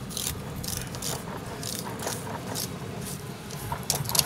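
A fillet knife cutting along a king salmon's backbone and ribs: a quick, irregular series of short scraping strokes, about two or three a second, over a low steady rumble.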